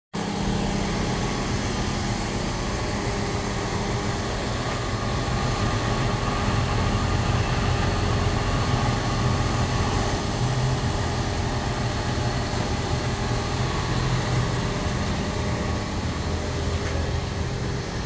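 Boom crane truck's engine running steadily with a low hum.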